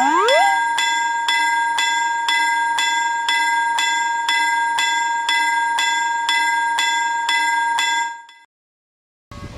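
Railroad crossing bell ringing its repeated 'kan-kan' strikes, about 2.7 a second over a steady ringing tone, with a rising glide at the very start. It fades out about 8 seconds in, and after a second of silence a train sound begins near the end.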